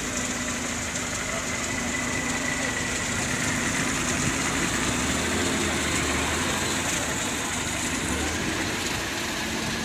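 Vintage open touring car's engine idling steadily close by.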